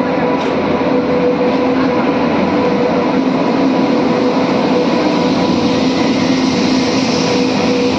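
Indian Railways express train arriving, its electric locomotive and coaches rolling past along the platform: a steady rumble of wheels on track with a constant hum running through it.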